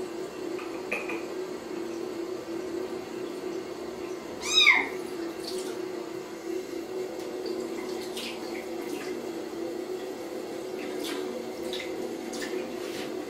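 A young kitten meows once loudly about four and a half seconds in, a single rising-then-falling cry, over the steady sound of a bathroom tap running into the sink.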